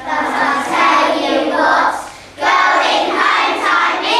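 A group of young children singing together, in phrases broken by a short breath about two seconds in.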